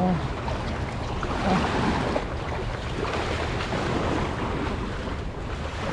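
Wind buffeting the microphone over small sea waves washing in the shallows, a steady rushing noise.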